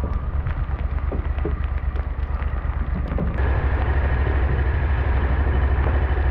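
Boat running under outboard power across open water, with heavy wind buffeting the microphone over the motor; it gets louder about three seconds in.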